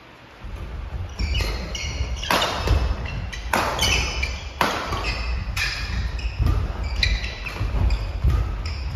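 Badminton doubles rally: rackets striking the shuttlecock about once a second, seven hits in all, with sneakers squeaking and feet thudding on the wooden gym floor. The rally starts about half a second in.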